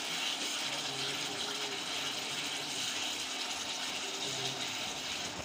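Spiced curry gravy sizzling and bubbling steadily in a frying pan: an even hiss.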